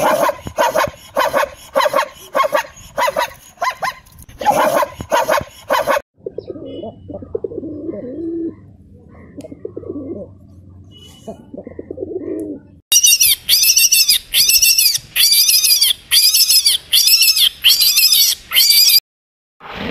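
Pigeons cooing in the middle of the stretch. Before it come loud rapid repeated animal calls, and near the end a run of loud high-pitched arching calls, nearly two a second.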